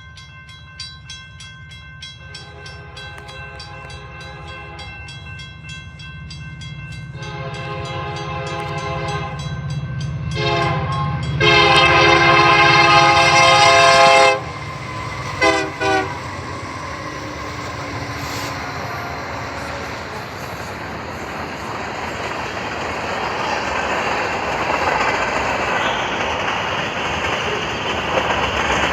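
GP40-2 diesel locomotive's multi-chime horn sounding at a grade crossing: two long blasts, two short ones, a long loud blast, then two quick toots, over a grade-crossing bell ringing rapidly through the first half. After the horn, the rumble of the locomotive and the wheels on the rails builds steadily as the train passes, loudest near the end.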